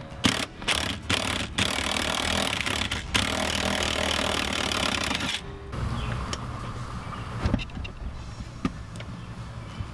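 Cordless impact wrench loosening a 14 mm seat-mounting bolt. It gives a few short bursts of hammering in the first second and a half, then runs continuously for about four seconds and stops about halfway through. A few faint clicks of the tool and socket being handled follow.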